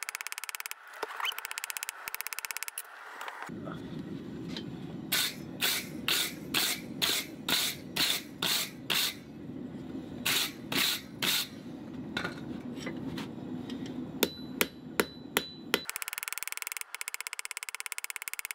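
Blacksmith's hammer striking hot steel on an anvil while drawing out a round taper. Rapid runs of light strikes open and close the passage, with heavier blows about two a second in the middle and a few sharp strikes that leave the anvil ringing near the end.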